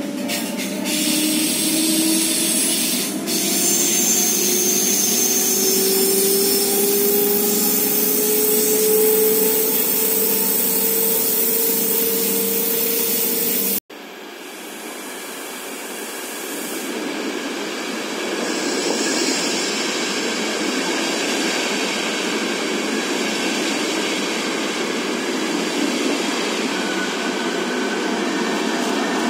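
Electric S-Bahn train heard from inside the carriage, its traction motors whining in a steadily rising pitch as it gains speed, over wheel-on-rail noise. After a sudden cut about halfway through, a double-deck train runs into an underground station, its rumble growing for several seconds and then holding steady as the carriages pass along the platform.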